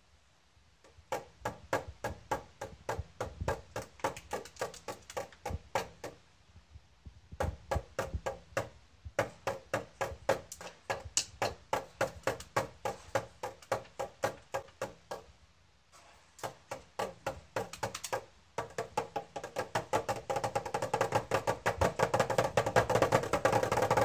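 A small tin toy snare drum tapped with a drumstick in a steady beat of about three taps a second, pausing twice. In the last several seconds a held tone rises beneath the taps.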